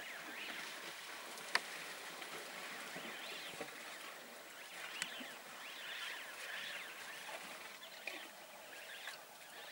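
African elephants drinking at a muddy waterhole, with water splashing and sucking at their trunks, under a steady run of short high chirping calls. Two sharp clicks come about a second and a half in and again about five seconds in.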